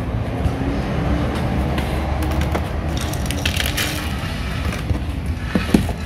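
Dry bird-seed mix of seeds, nuts and vegetable pellets being tipped from a plastic bowl into a wooden popsicle-stick feeder, rattling and rustling mostly in the middle, over a steady low rumble.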